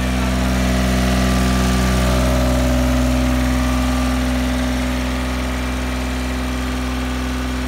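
Yanmar AF-28 Super Forte compact tractor's diesel engine idling steadily.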